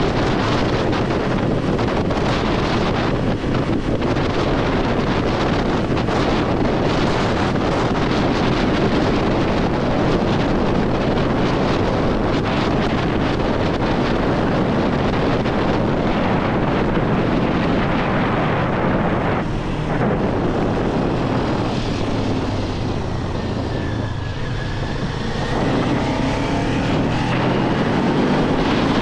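Kawasaki 400 naked bike running at speed, its engine mostly buried under heavy wind noise on the microphone. The wind eases somewhat near the end, and the engine note comes through more plainly.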